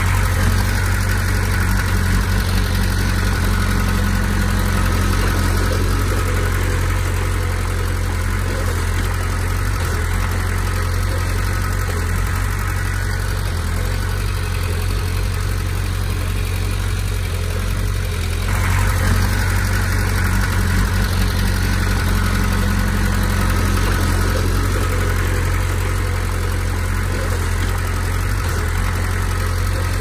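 Komatsu D20P bulldozer's diesel engine running steadily, briefly getting louder about two-thirds of the way through.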